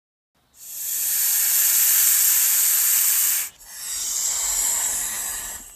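A snake hissing in two long breaths. The first is loud and lasts about three seconds; the second is softer and fades away near the end.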